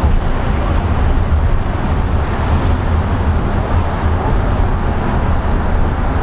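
Steady rumble of a car driving, heard from inside the car: engine and tyre noise, strongest in the low end. A faint high whine fades out about a second in.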